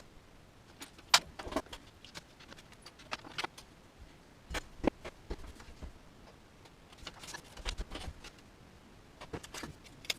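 Small plastic and metal parts of a miniature RC winch clicking and rattling as they are handled and fitted together by hand. Irregular sharp clicks, the loudest about a second in, with clusters of handling noise around the middle and again near the end.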